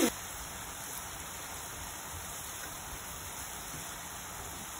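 Ground sausage frying in a cast-iron skillet, a steady, even sizzle.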